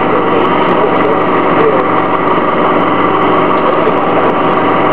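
The Detroit Diesel Series 50G natural-gas engine of a 2004 Orion VII CNG transit bus running steadily.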